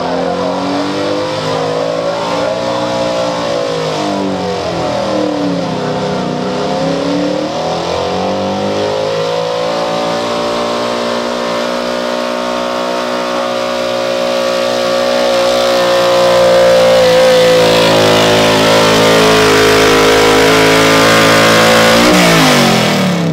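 Small-block V8 pickup engine at full throttle pulling a weight-transfer sled. Its pitch rises, dips and climbs again in the first several seconds, then holds high and steady. It grows loudest in the last stretch and falls away sharply near the end as the pull stops.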